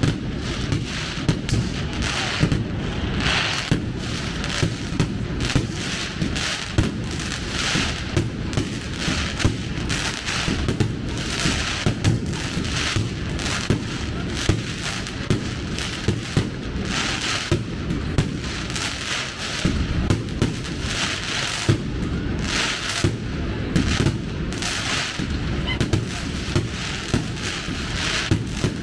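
Fireworks going off in an unbroken string of sharp bangs, about one or two a second, over a continuous low rumble.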